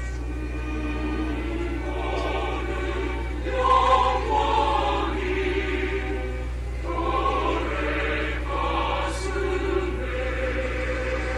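Background music: a choir singing slow, held notes in swelling phrases over a steady low drone.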